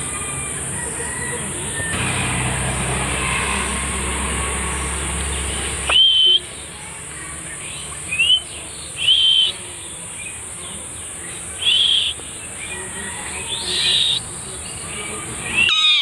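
Indian ringneck parakeet giving short, sharp calls, each quickly rising and then briefly held, about six of them in the second half, loud against a steady high insect drone.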